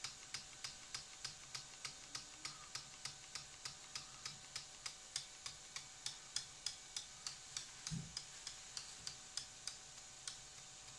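JR 2K Game Changer cyclic servo stepping through its downward arc during automatic synchronization, giving a short tick about three times a second that stops shortly before the end. A brief low thump about eight seconds in.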